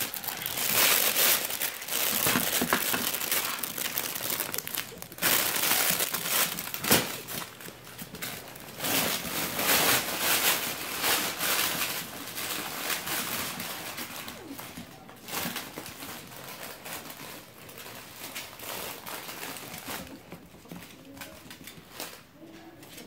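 A fabric pet play tunnel crinkling and rustling in irregular bursts as puppies scramble into it and paw at it, busiest in the first half and thinning toward the end.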